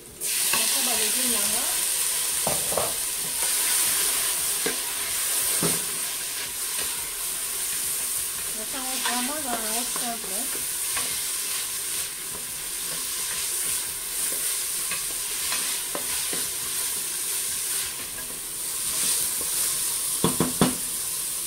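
Peas and sweetcorn dropped onto onions in hot oil in a stainless steel pot start sizzling all at once, then keep frying steadily as a wooden spoon stirs them. A few knocks of the spoon against the pot, two close together near the end.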